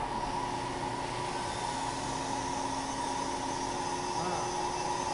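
Hankook HanTurn 95M CNC lathe running with a steady whir and a constant high hum.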